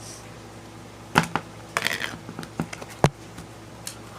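Slime being squeezed and handled: a few scattered sticky clicks and crackly pops, the sharpest about three seconds in.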